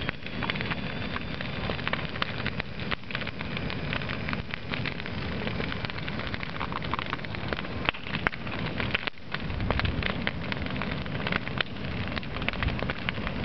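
Large brush-pile bonfire of dry branches burning hard, crackling and popping continuously with many sharp snaps over a low steady rumble.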